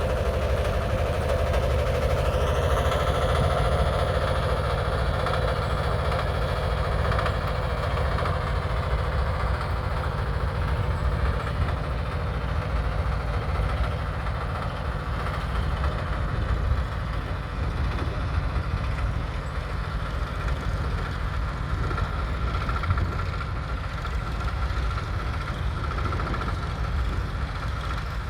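1959 Porsche Diesel Junior's 822cc single-cylinder diesel engine running steadily, with a rapid low pulse. A higher whine rises about two to three seconds in and then holds steady over it.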